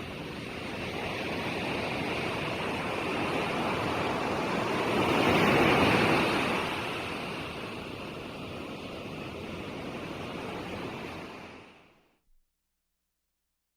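Ocean surf: waves washing in a steady rush, one wave swelling loudest about halfway through, then the sound fades out near the end.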